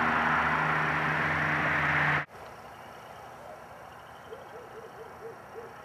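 Ford Probe GT's aftermarket exhaust running at a steady, unchanging note, then cutting off suddenly a little over two seconds in. After that, a quiet background with a few faint, short chirps.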